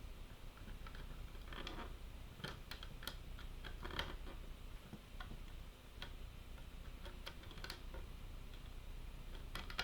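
Irregular small clicks and light scrapes of a small screw being handled and driven into the Korg NTS-1 kit's case with a small screwdriver.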